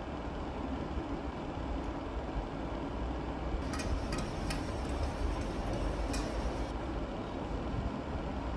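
Tap water running and splashing into a stainless steel sink for about three seconds around the middle, with a few sharp knocks, as vegetables are rinsed under it. A steady low hum runs underneath throughout.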